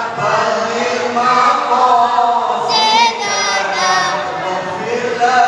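A mosque congregation of men chanting together in unison, as done between tarawih prayer cycles. One voice stands out more clearly about three seconds in.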